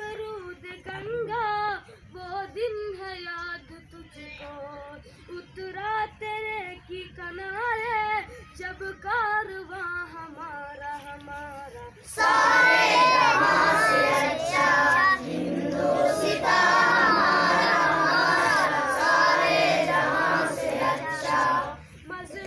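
A child singing a song alone, then about twelve seconds in a group of children's voices joins in and sings together, much louder, until shortly before the end.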